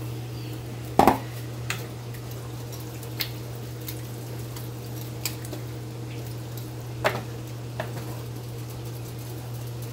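Kitchen clatter at the stove: a few sharp knocks of kitchenware against a pot, the loudest a double knock about a second in and another about seven seconds in, over a steady low hum.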